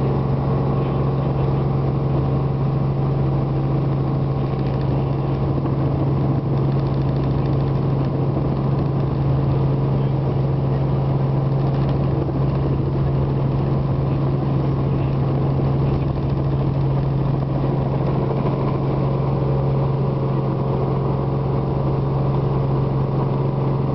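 Steady engine drone heard from inside a vehicle's cabin: a constant low hum that holds the same pitch throughout.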